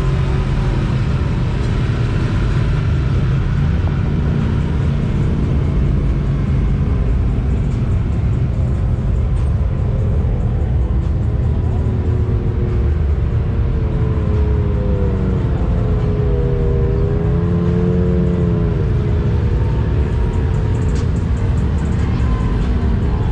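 ATV engine running under load, its revs rising and falling several times in the second half, over a steady low rumble.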